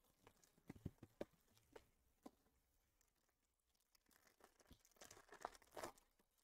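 Foil wrapper of a Topps Tier One baseball card pack crinkling and tearing as it is opened, faint: a few scattered crinkles early, then a denser run of crinkling and tearing about four and a half seconds in.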